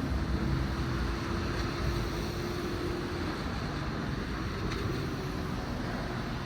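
Vancouver SkyTrain running past: a steady hum over a broad rushing noise that slowly fades. The hum stops about three seconds in.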